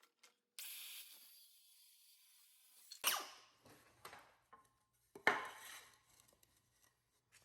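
Tools and 2x4 lumber being handled while measuring and marking: a short hiss about half a second in, then two short, sharp scraping clatters about three and five seconds in.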